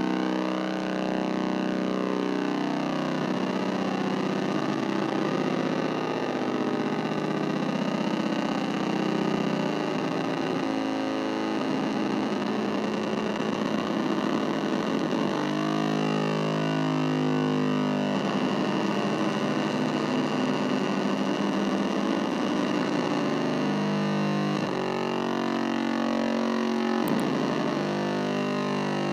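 Casper Electronics Nova Drone analog synthesizer playing a dense drone of many held tones, with the tone pattern shifting every few seconds as it is played.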